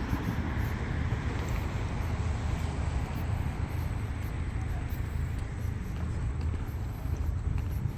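Steady low rumble of distant city traffic, an even drone with no single vehicle standing out.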